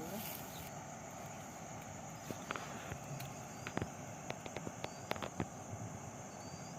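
Steady high insect drone with scattered sharp clicks and ticks, most of them between about two and five and a half seconds in, and a few faint short high chirps.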